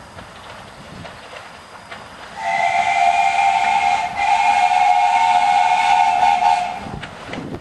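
The whistle of the 15-inch-gauge steam locomotive 'Fox': one long shrill blast, starting about two and a half seconds in, with a brief break near the middle. It sounds over the quieter running of the approaching engine.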